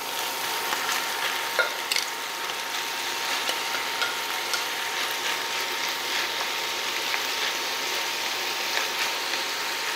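Frying pan sizzling steadily, with scattered sharp crackles, as raw ground beef is tipped onto hot softened onions and peppers and stirred in with a spatula.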